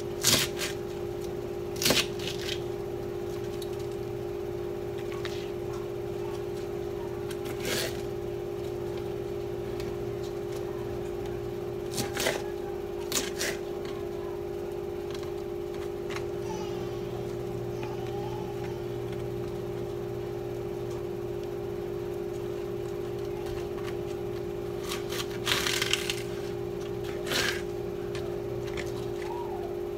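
Kitchen knife cutting cabbage on a cutting board: sharp knocks of the blade against the board, spread out irregularly, over a steady electrical hum.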